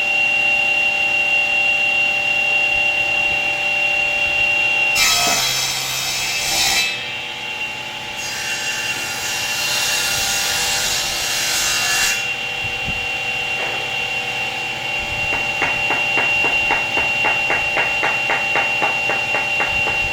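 A multi-motor woodworking machine running with a steady whine, cutting wood twice in noisy passes, a couple of seconds then about three seconds long. Near the end, a rhythmic run of strokes at about three or four a second.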